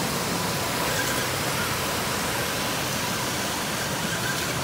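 Steady rush of river water over a small cascade: an even, unbroken hiss.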